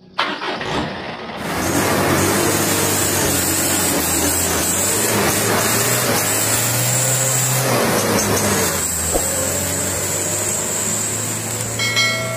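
Truck engine running loud and steady under a heavy hiss. Near the end a bell dings once.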